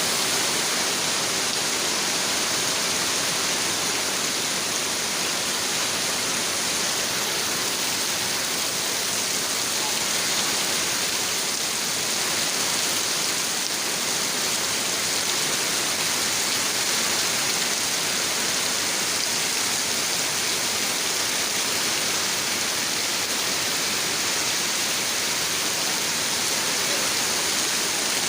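Steady, unbroken rush of water, most of it a high hiss.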